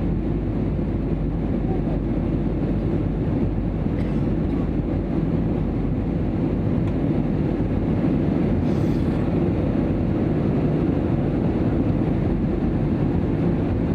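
Steady low engine and airflow noise inside the cabin of an Airbus A320 airliner.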